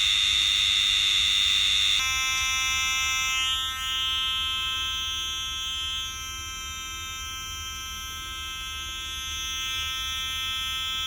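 Homemade two-transistor BC547 oscillator circuit sounding through a tiny tweeter speaker: a steady, buzzy electronic tone. About two seconds in it switches from a harsh hissing buzz to a clearer, lower, steady pitched tone that holds to the end.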